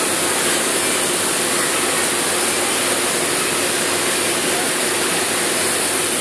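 Motor-driven blower or machinery running steadily: an even, loud rushing hiss with a faint constant hum under it.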